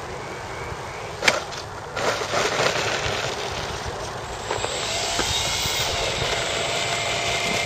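Foam RC model airplane landing on a gravel track: a sharp knock about a second in, then rough noise. In the second half comes the steady whine of its motor, with a few brief pitch glides.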